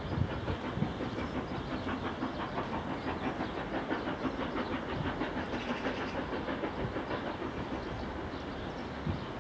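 LMS 8F 2-8-0 steam locomotive 48151 and its train heard running unseen along the line, a steady clatter of wheels on the rails.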